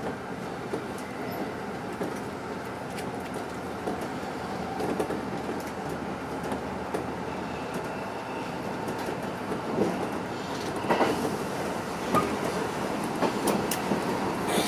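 Hanshin Electric Railway train running, heard from inside the front car: a steady rumble of wheels and motors on the rails. From about two-thirds of the way in, a run of sharp clacks from the wheels comes over it, a little louder.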